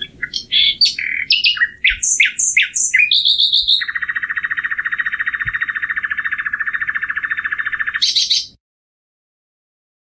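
Common nightingale singing: a quick run of varied whistled and chipped notes, then a long, fast, even trill of repeated notes lasting about four seconds, closed by a short higher buzzy note.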